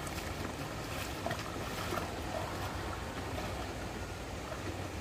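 Water flowing steadily, with a low rumble and a few light clicks or small splashes in the first two seconds.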